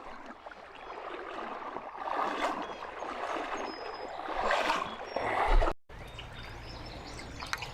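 Creek water running and trickling, swelling a little twice, with a brief total dropout about three-quarters of the way through.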